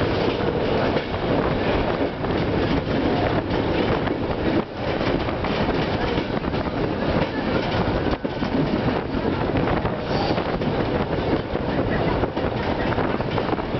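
Open passenger wagon of a tourist train rolling along the track, heard from on board: steady running noise of wheels on rails with many small knocks and rattles throughout.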